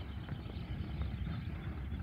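Low, steady rumble of a distant GE U12 diesel-electric locomotive approaching with a work train.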